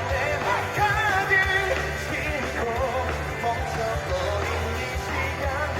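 Male singer performing a pop-rock song live, his voice held and bending with vibrato over amplified accompaniment with a strong, steady bass.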